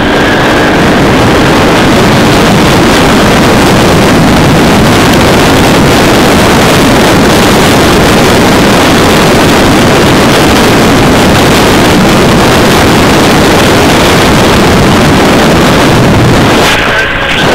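Arctic Cat Wildcat side-by-side driving at speed, its engine mostly buried under loud, steady wind buffeting on the microphone.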